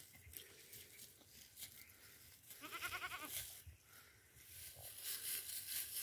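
A young goat bleats once, a single wavering bleat a little under a second long about halfway through.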